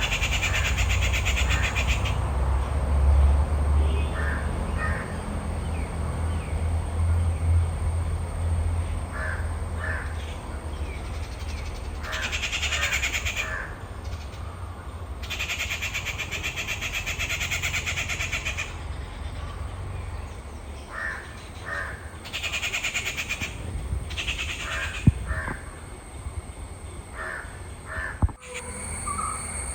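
Crows cawing outdoors, short calls in twos and threes every few seconds. Spells of a high buzzing lasting one to three seconds start and stop several times between the calls.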